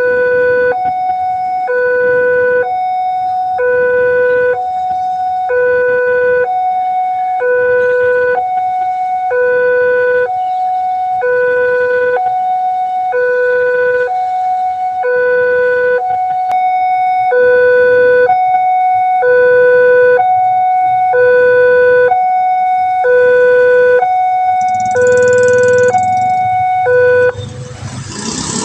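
Railway level-crossing warning alarm sounding a repeating electronic two-tone signal, a higher tone then a lower one, about every two seconds, warning that a train is coming. It stops shortly before the end, leaving the rumble of road traffic.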